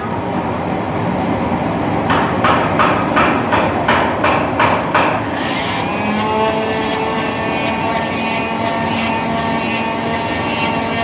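Workshop noise: about ten evenly spaced strokes, roughly three a second. Then, from about six seconds in, a machine motor runs with a steady hum and whine.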